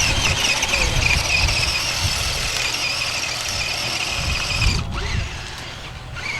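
Radio-controlled offroad car's motor and gears whining under throttle: a high, wavering whine that cuts off about five seconds in and picks up again near the end.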